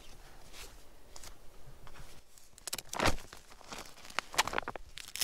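Nylon fabric of a Lafuma Manta 2 tent rustling and crinkling under a hand, in a series of short scrapes with the loudest about three seconds in.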